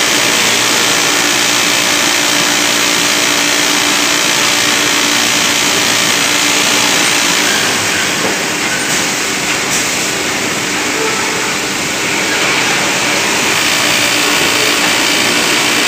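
Texpa automatic flat-sheet machine running, its industrial sewing heads stitching the top and bottom hems as the sheet fabric feeds through: a loud, steady mechanical running noise with a faint hum.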